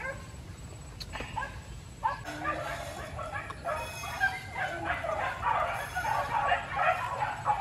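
Hunting dogs yipping and whining in short, high, overlapping calls that come thick and fast from about two seconds in.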